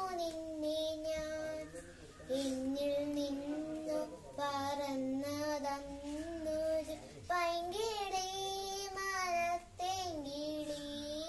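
A young girl singing a Malayalam song with no accompaniment, in long held phrases with short breaths between them.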